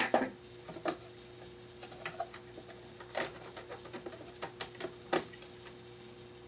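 Light, irregular clicks and taps of a bare copper ground wire being bent by hand and hooked onto the green ground screw of a switch/outlet combination device, over a faint steady hum.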